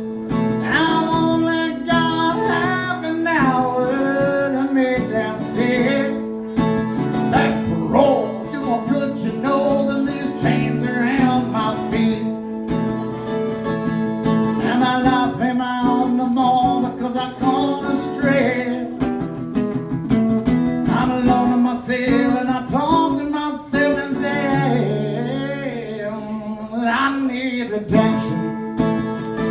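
Live country song: a voice singing over a strummed acoustic guitar.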